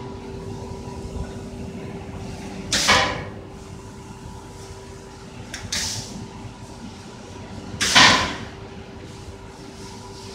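Fiber laser cutting machine humming steadily, broken by three short hissing bursts: one about three seconds in, a weaker one near six seconds, and the loudest about eight seconds in.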